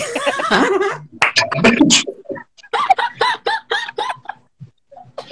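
Several people laughing over a live video call, the laughter turning into a run of high, rapid cackles about halfway through.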